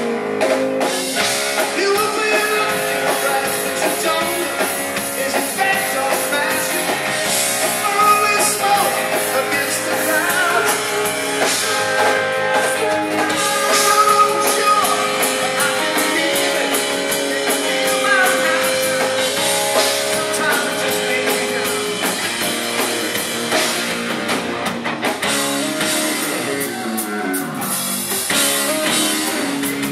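Live rock band playing: electric guitar over a drum kit, with held and bending guitar notes.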